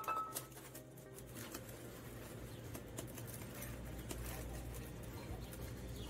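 Faint rustling and a few light taps as a cloth rag is handled and wiped over a bare metal engine valve cover, with a low steady hum underneath.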